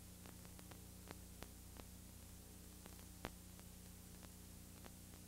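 Near silence: a low, steady electrical hum under faint hiss, with scattered faint clicks, as in the blank tail of a videotape transfer.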